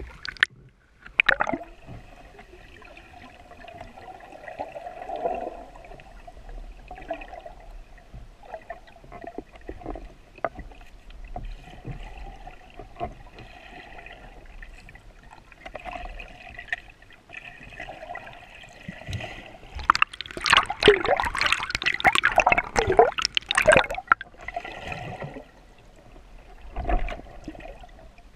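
Water gurgling and sloshing around an underwater camera just below the surface, with scattered small clicks. About twenty seconds in, a louder stretch of churning water lasts for about four seconds.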